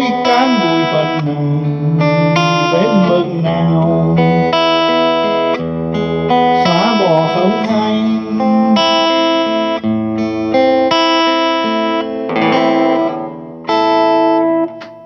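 Martinez MS-206CE acoustic-electric guitar, solid spruce top with laminated mahogany back and sides, played through its Acus-4TR preamp EQ and an amp. It strums chords in a slow-rock rhythm, the notes ringing between strokes. Near the end the playing drops off, one last chord is struck, and it rings out and fades.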